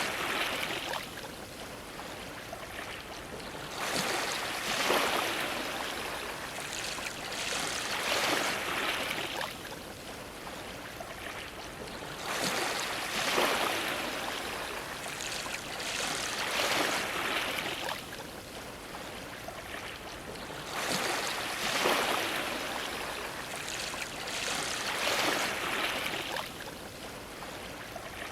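Ocean waves washing against a dock, surging and splashing about every four seconds, with water sloshing in between.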